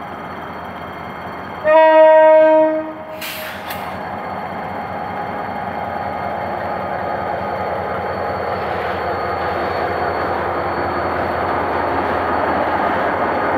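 GM GT22CW-2 diesel-electric locomotive sounding its horn once, a loud blast of about a second starting about two seconds in, followed by a brief hiss. Its 12-cylinder two-stroke EMD diesel then works steadily as it pulls a passenger train away, growing louder as it comes by.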